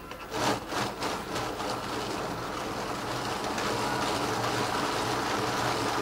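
A few plastic knocks as the motor gear is set against the board, then a NEMA 17 stepper motor driving a train of 3D-printed plastic gears, a steady whirring rattle that builds over the first couple of seconds and holds.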